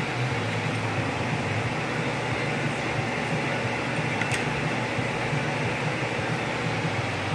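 Steady hum and whirr of a fan or ventilation motor, with a single small click about four seconds in.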